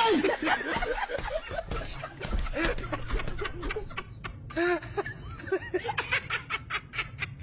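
Laughter: a run of short snickering, giggling bursts.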